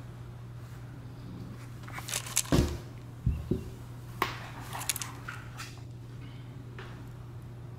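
Savannah kittens' paws scampering on a hardwood floor, with a cluster of sharp knocks and a couple of heavier thumps about two to five seconds in as the cats bump into the camera. A steady low hum runs underneath.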